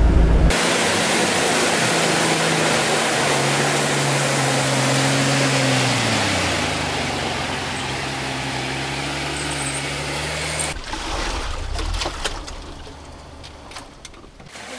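Jeep Wrangler YJ engine running as it pushes through deep water, with loud rushing and splashing water over it; the engine pitch drops about six seconds in, and near eleven seconds the engine and water noise cut off abruptly, leaving drips and a low rumble. The engine is stalling from taking in water, having no snorkel.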